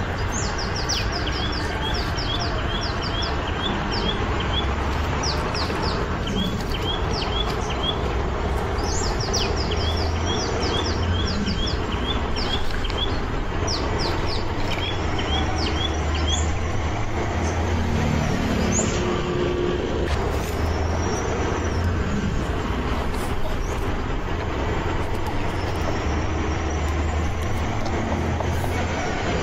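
Small birds chirping in quick runs of short, high notes, mostly in the first half, over a steady low rumble and hiss.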